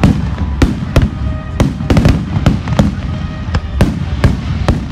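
Aerial fireworks shells bursting in quick, irregular succession: about a dozen sharp bangs, two or three a second, over a continuous low rumble.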